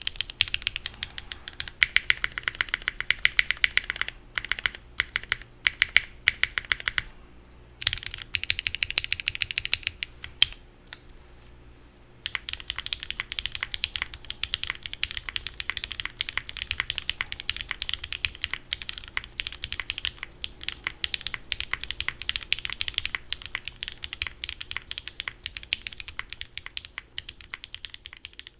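Fast typing on a Qwertykeys Neo65 mechanical keyboard with lubed Gateron Milky Yellow linear switches in black bottom housings (KS-3X47), a carbon fiber plate and GMK keycaps. The keystrokes sound a bit muted. The typing comes in quick runs, pauses twice briefly, then goes on as a steady fast run from a little under halfway through.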